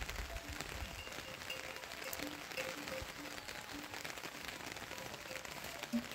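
Steady rain falling on grass and leaves, with scattered drop taps and a brief knock just before the end.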